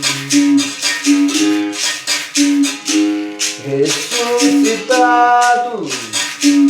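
Berimbau playing a steady rhythm, its pitched notes alternating over the shake of a caxixi rattle. A voice sings one drawn-out word near the end.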